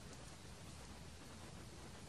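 Near silence: a faint, steady outdoor background hiss with no distinct events.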